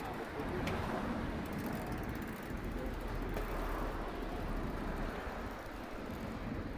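Steady outdoor background noise with a low rumble that swells in the middle and eases near the end.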